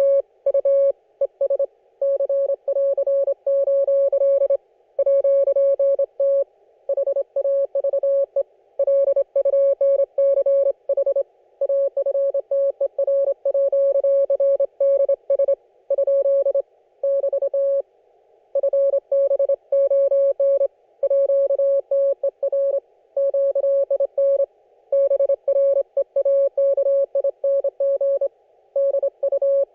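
Morse code (CW) heard through an amateur radio receiver: a single steady tone of about 600 Hz keyed on and off in dits and dahs, with short spaces between characters and a pause of about a second roughly two-thirds of the way through.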